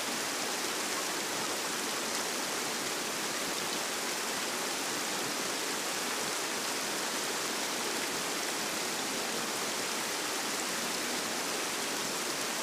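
Flowing river water, a steady, even rush.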